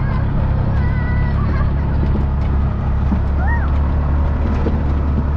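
Car driving slowly with a steady low engine and road drone, and a few short high chirps above it, around a second in and again in the middle.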